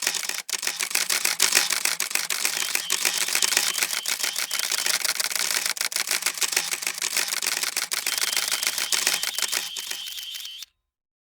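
Camera shutter firing in a rapid continuous burst: a dense run of sharp clicks that cuts off suddenly near the end.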